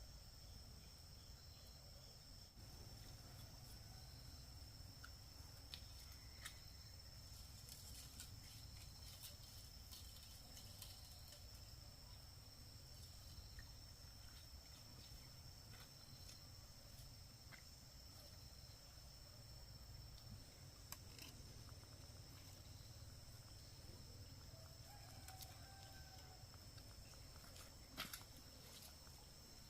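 Faint outdoor ambience: a steady high insect drone like crickets, with scattered small clicks and a faint short animal call near the end.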